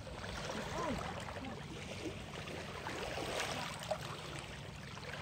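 Small sea waves washing and gurgling over shoreline rocks, a steady wash that swells a little about three seconds in.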